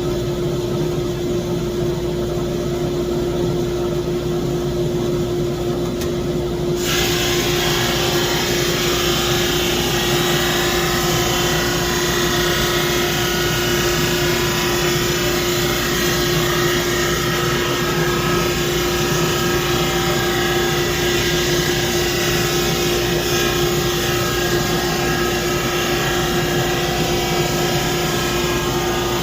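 Laguna SuperMax 25-50 drum sander running with a steady hum. About seven seconds in, a board feeds under the sanding drum and a loud, even sanding hiss joins in.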